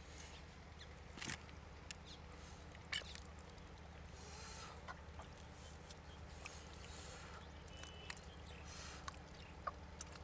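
Hands digging and scooping in thick wet mud, giving faint scattered squelches and wet slaps over a steady low hum.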